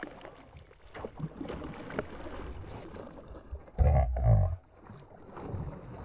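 Hooked peacock bass (tucunaré) thrashing and splashing at the water's surface against the line, with a loud, low, churning burst about four seconds in as the fish breaks the surface.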